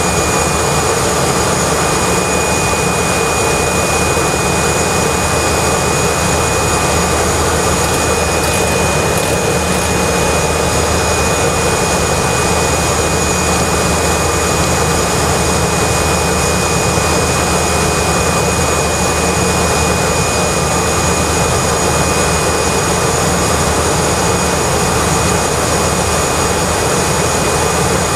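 Cessna 208B Caravan's Pratt & Whitney PT6A turboprop engine and propeller running steadily, heard from inside the cabin: a loud drone with a steady high-pitched turbine whine over it.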